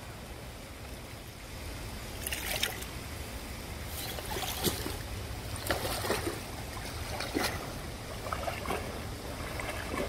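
Water trickling and running from a small rain-fed waterfall, over a steady low rumble, with scattered short crackles from about two seconds in.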